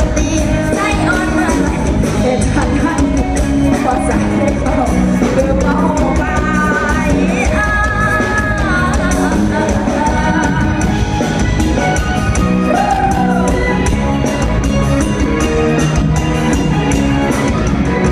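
A song playing: a singer over band accompaniment with a steady driving drum beat.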